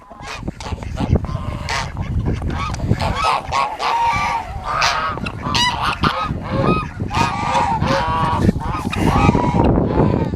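Domestic geese honking, many short calls overlapping and repeating throughout.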